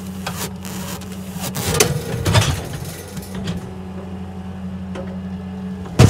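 Tanco bale wrapper turning a round bale as it wraps it in plastic film, run by the International 856 tractor. A steady engine drone carries through, with scattered clunks and rattles from the wrapper, the loudest about two seconds in.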